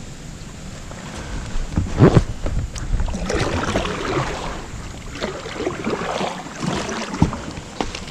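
Kayak being paddled: the paddle splashes and swishes through the water in uneven strokes, with a few sharp knocks, the loudest about two seconds in.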